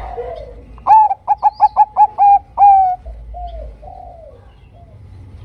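Zebra dove (perkutut bangkok) singing its song about a second in: an opening coo, a quick run of about six clipped notes, then a longer held final coo. Softer short coos come before and after it.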